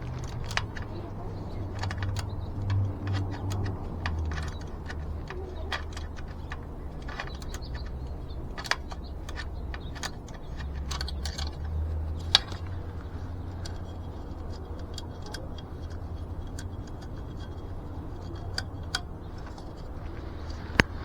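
Scattered light metallic clicks and taps from hand work on an e-bike's rear wheel, with a few sharper knocks, over a steady low hum.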